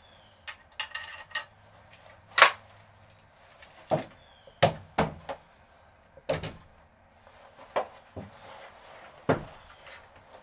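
Metallic clicks about a second in and a sharp snap at about two and a half seconds from a shotgun's action being worked. Then a string of separate knocks on wooden boards.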